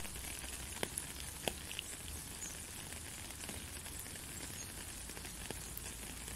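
Steady rain falling on a wet road and puddles, an even hiss with a few louder drops tapping out now and then.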